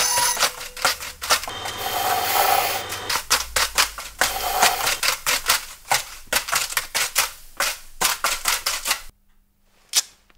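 A quick, uneven run of sharp clicks, snaps and knocks from hand tools being worked, broken by two short whirring stretches. The clicking stops about nine seconds in, followed by one last click.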